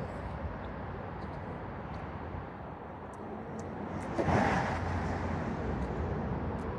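Steady traffic rumble from vehicles on a freeway overpass, with a brief louder swell about four seconds in.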